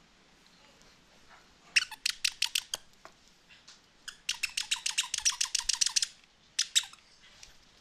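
Squeaker inside a plush dog toy squeezed over and over: a quick run of about eight squeaks, a longer, faster run a couple of seconds later, then two last squeaks.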